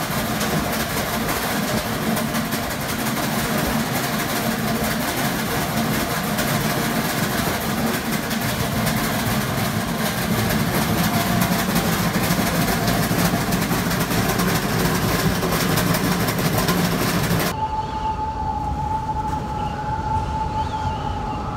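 Hurricane-force wind roaring steadily, with a low hum and a howling tone running through it, heard at a closed double door. About seventeen seconds in it changes abruptly to a thinner rush with a steady high whistle of wind.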